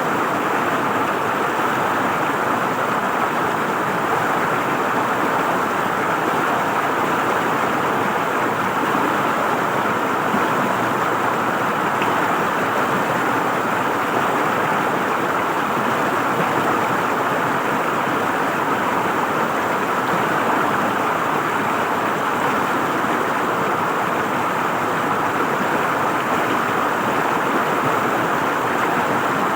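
River water flowing and gurgling over stones, a steady unbroken rush.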